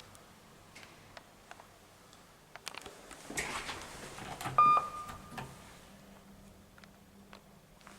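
Kone MonoSpace lift with KSS 470 fixtures: a few faint clicks and a rustle, then a single electronic beep a little past halfway that trails off in under a second, followed by a faint low hum.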